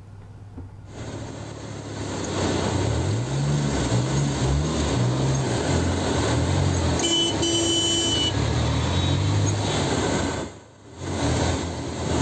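Road traffic in heavy rain on a flooded street: vehicle engines running and revving up and down over a steady hiss of rain and water. A brief steady high tone sounds about seven seconds in.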